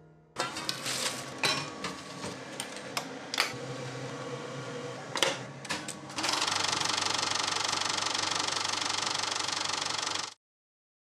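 Film projector: a series of clicks and knocks, then about six seconds in the machine starts running with a steady, rapid mechanical clatter that cuts off suddenly near the end.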